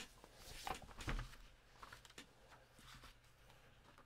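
Faint handling sounds of a paper catalogue being brought onto the table: a few soft knocks and paper rustles about a second in, then scattered light clicks.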